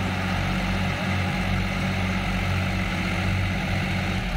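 Swaraj tractor diesel engines run steadily under load as one tractor tows another that is stuck in sand with a loaded trailer. The sound is a steady low drone that dips briefly about a second in.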